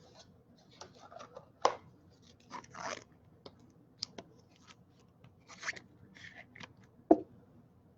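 Baseball cards being handled: scattered soft rustles and slides with a few sharper clicks, the loudest about a second and a half in and another near the end.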